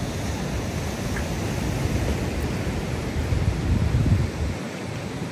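Sea surf breaking on the shore with wind buffeting the microphone. The low wind rumble gusts strongest about four seconds in and then drops away suddenly, leaving the wash of the waves.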